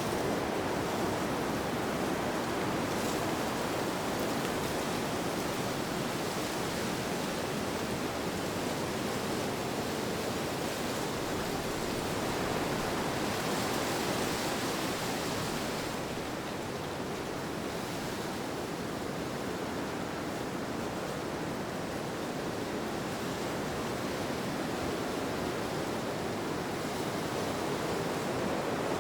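Wind ambience: a steady rushing noise that swells and eases slowly, brightening for a few seconds around the middle and then settling.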